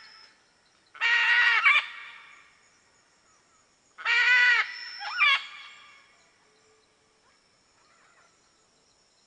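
Red-and-green macaw giving three loud squawks: one about a second in, then a pair about four seconds in, the second of them shorter.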